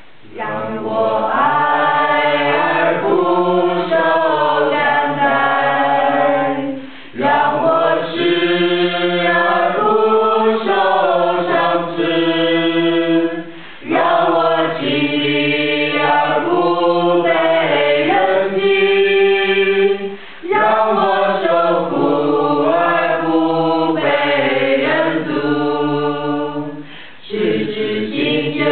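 A choir singing a slow piece in long sustained phrases, each about seven seconds, with brief pauses for breath between them.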